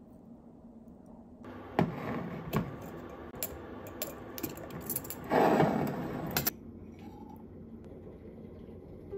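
Glass clip-top jar being opened: its metal wire clasp clicks and clinks against the glass in a run of sharp knocks, with a louder rasping scrape about five seconds in, then quiet.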